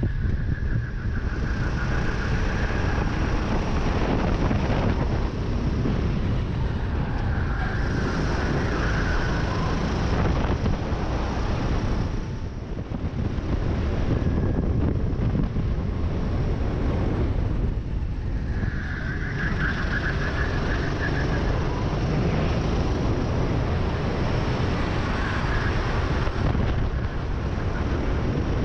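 Onboard sound of a rental racing kart at speed: its engine running hard with heavy wind buffeting on the microphone. The noise dips briefly about twelve seconds in.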